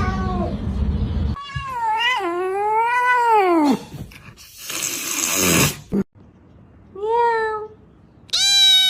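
Domestic cats vocalising in a run of separate clips: a long yowling meow about a second and a half in that bends up and down in pitch, a breathy, noisy sound a few seconds later, then two short meows, the last one higher.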